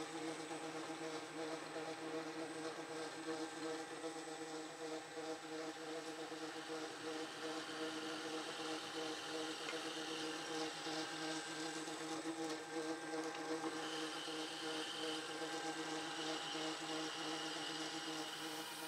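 Milling machine (a Taiwanese Bridgeport clone) running with a twist drill boring through a flat steel strap: a steady motor hum with cutting noise as the chips come off.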